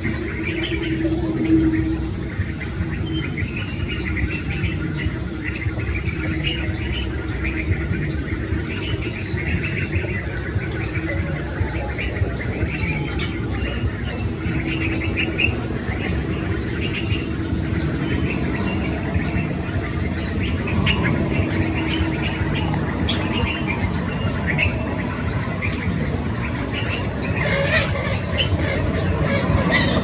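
Insects trilling with a steady high-pitched pulsing tone, with scattered bird chirps and short double chirps every few seconds. Underneath are a constant low rumble and, at times, a low hum.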